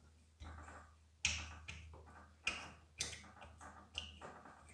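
A handful of sharp, light clicks and taps, the loudest about a second in, as a greased brass washer is slid down into the overflow (bypass) valve bore of a Karcher HD pressure washer's brass pump head, with small metal parts knocking against the housing.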